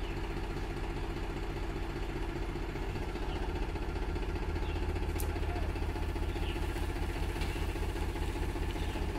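Tractor's diesel engine running steadily, growing louder from about four seconds in.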